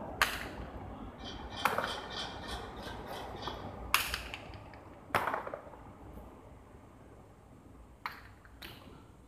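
A hard jai alai pelota cracking against the fronton's walls and floor, thrown and caught with cestas. There are sharp, echoing smacks every second or two, four strong ones and then two fainter ones near the end.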